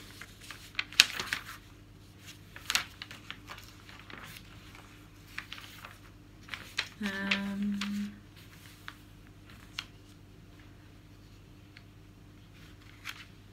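Magazine pages being turned and handled: paper rustling and crinkling in short, scattered bursts. A brief hummed note about halfway through.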